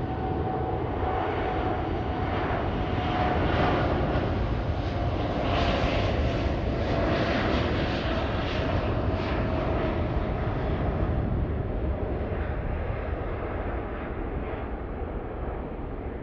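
Boeing 787-10 twin-engine jet on its takeoff roll, engines at takeoff power: a loud, steady rush of jet noise with a faint whine slowly dropping in pitch. It grows louder as the airliner goes by, then fades away.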